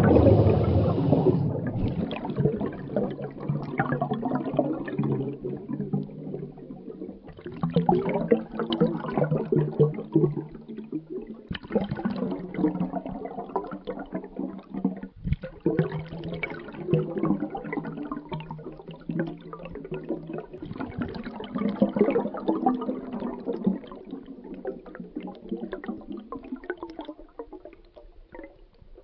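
Bubbles streaming underwater, heard underwater: a dense bubbling that comes in several surges, starting loud and swelling again a few times before fading out near the end.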